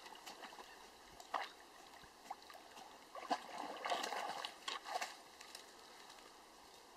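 Splashing and dripping water as a dog paddles and wades out of a lake onto the bank, in scattered short splashes that are busiest between about three and five seconds in.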